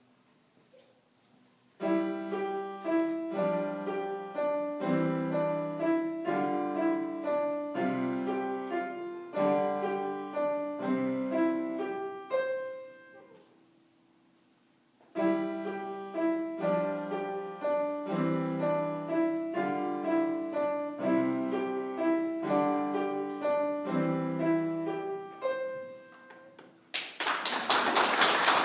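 A child playing a short, simple piece on an upright piano, in two phrases with a pause of about two seconds between them. Clapping breaks out near the end as the piece finishes.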